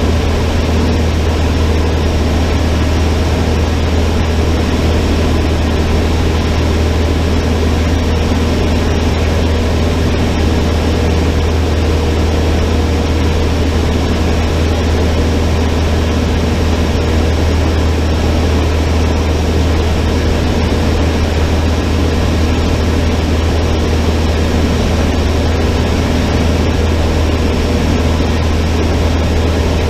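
Cessna 152's four-cylinder Lycoming engine and propeller running at a steady, unchanging power, a loud continuous drone with a deep hum underneath.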